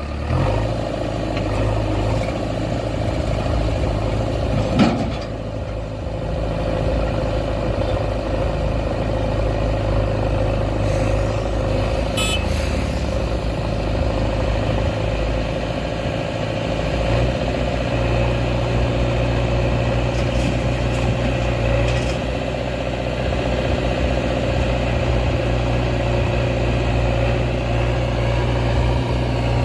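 JCB 3DX backhoe loader's diesel engine running steadily while working. Its low note shifts a couple of times as the load changes, and there are brief knocks about 5 and 12 seconds in.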